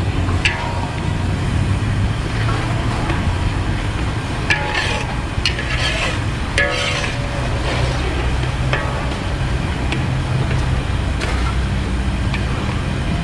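A spatula stirring and scraping a thick simmering soybean paste around a large aluminium wok, with a few short scrapes about five to seven seconds in, over a steady low rumble.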